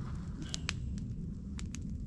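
Wood fire crackling, a few sharp pops over a steady low rumble.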